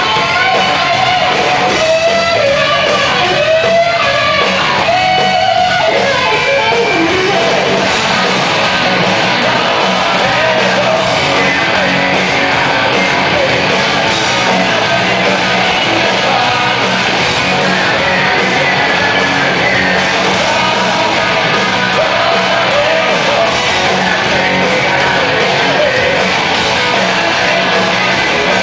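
Live hard rock band playing loud, with electric guitars, drums and a lead singer, recorded from the crowd.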